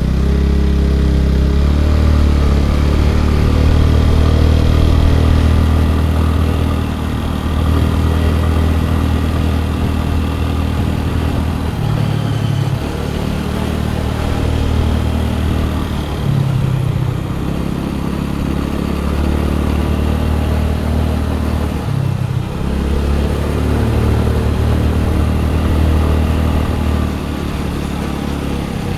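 Scooter engine running while it is being ridden, its note shifting up and down a few times as the throttle changes.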